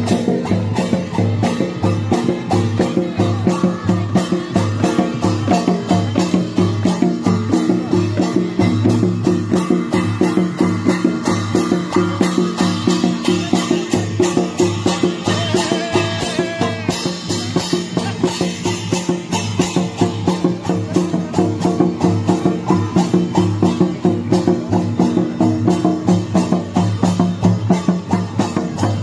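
Santali tumdak' (mandar) double-headed barrel drums played by hand in a steady, driving dance rhythm, a deep beat about twice a second with quicker strokes between.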